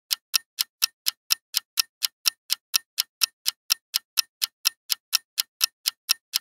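Clock-tick sound effect ticking evenly at about four ticks a second, counting down the time to answer a quiz question.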